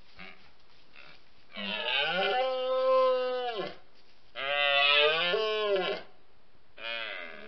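Red deer stag roaring during the rut: two long, loud roars, each dropping in pitch as it trails off, and a shorter third roar starting near the end.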